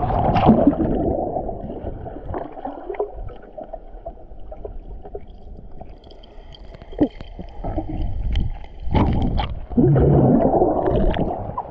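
Muffled gurgling and sloshing of water heard underwater while snorkeling, with scattered sharp clicks; it swells loudest near the start and again toward the end.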